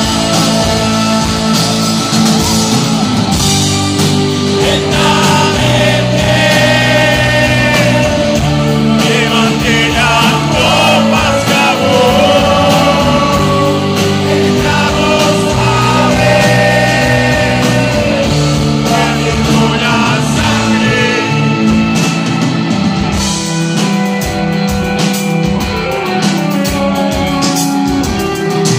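Rock band playing live: a man sings lead over electric guitars, bass and drums. The singing stops a little over twenty seconds in, and the band plays on with busy drums and cymbals.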